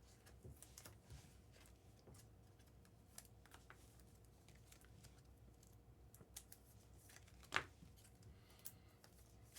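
Near silence with faint, scattered clicks and rustles of trading cards and packs being handled, with one sharper tap about seven and a half seconds in.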